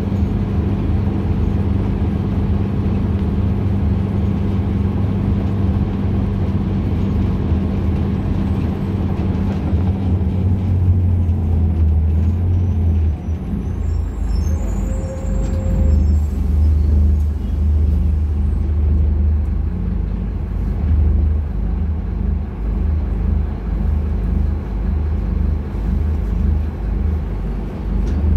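Inside a city bus on the move: the Scania K250UB's rear-mounted diesel engine drones steadily over road and body noise. About halfway through its note drops and turns more uneven as the bus eases off.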